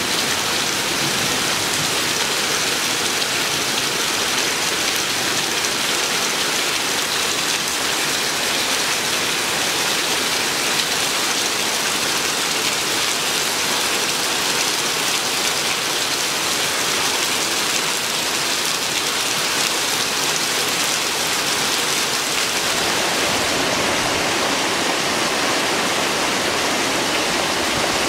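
Heavy rain pouring steadily, an even dense hiss on the ground and foliage. About 23 seconds in it becomes a little deeper and less hissy.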